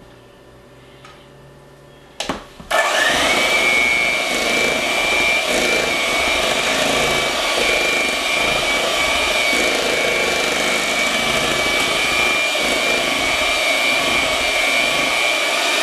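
Electric hand mixer starting up about three seconds in, then running steadily with a constant whine as its beaters whip no-bake cheesecake filling of cream cheese, Dream Whip and instant pudding in a stainless steel bowl until it is really thick.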